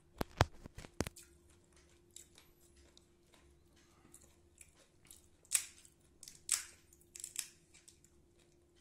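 Crunching of crisp fried phuchka (pani puri) shells: several sharp crunches in the first second as one is chewed, then scattered cracks as another shell is broken open with the fingers, the loudest about five and a half and six and a half seconds in.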